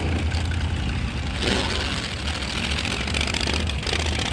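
Drag-racing car engine idling with a steady low rumble; a burst of hiss rises about a second and a half in and fades.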